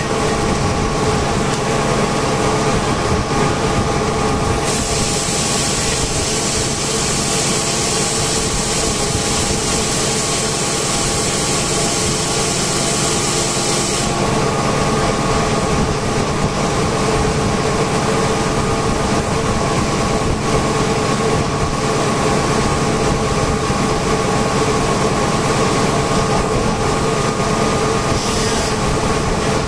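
Naili A55 rotary vane air compressor running with a steady hum and several steady tones. A high hiss sets in about five seconds in, stops abruptly about halfway through, and comes back briefly near the end.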